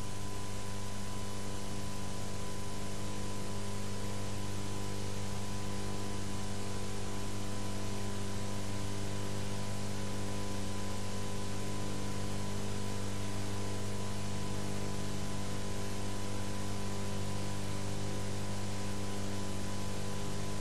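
A steady electrical hum of several low tones under an even layer of hiss, with no other sound.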